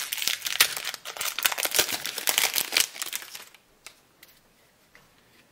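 Foil wrapper of a trading-card booster pack crinkling and tearing as it is ripped open by hand. The crackling stops about three and a half seconds in, leaving a few faint ticks.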